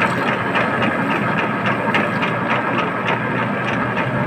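Metal lathe running while it cuts a thread on a steel shaft: a steady machine hum with a regular tick about five times a second.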